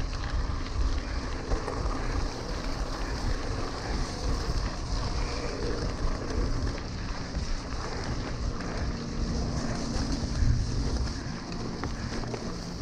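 Wind noise on the microphone of a handlebar-mounted camera as a mountain bike rolls over gravel, with tyre noise; a steady rushing sound.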